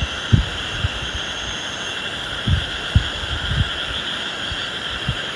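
Steady chorus of night insects in the forest, with a few soft low thumps about half a second in and several more between about two and a half and three and a half seconds.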